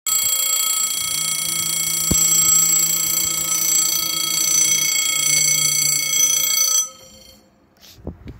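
Level crossing warning bell ringing loudly and continuously as the barriers lower, then cutting off suddenly about seven seconds in.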